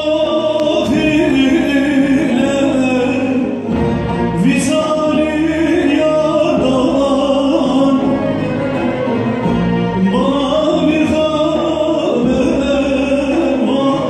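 A Turkish folk song from Erzurum sung by a male solo voice with long ornamented lines, accompanied by an ensemble of bağlamas, ouds and other Turkish folk instruments.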